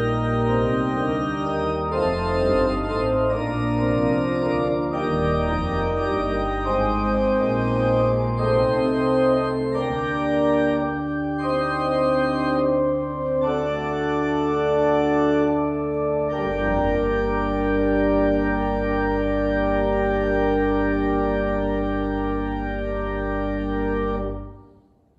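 Church organ playing slow sustained chords over a deep pedal bass, ending on a final chord held for several seconds that cuts off near the end.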